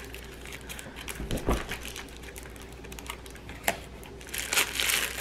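Clear plastic wrapping crinkling as hands handle and open it, with scattered crackles that grow denser and louder near the end. A soft thump about a second and a half in.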